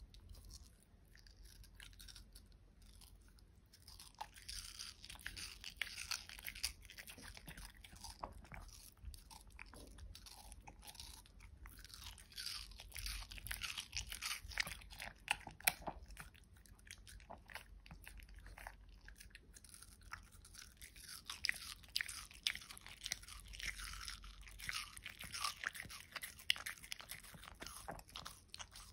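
Shih Tzu biting and chewing a hand-held slice of watermelon: a dense run of quick crunching bites that starts a few seconds in, eases off twice and picks up again.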